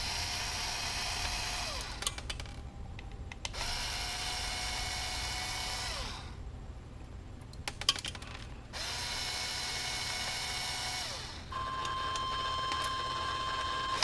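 Cordless electric screwdriver backing screws out of a metal hard-drive mounting bracket. It runs in several spells of two to three seconds, its whine rising at each start and dropping at each stop, with small clicks in the pauses between.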